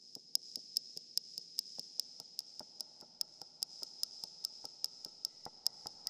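Sampled bird-whistle instrument (Emergence Audio Infinite Bird Whistle in Kontakt) playing a pulsing patch. A steady high whistle tone is chopped by sharp ticks about five times a second, over a soft grainy lower layer.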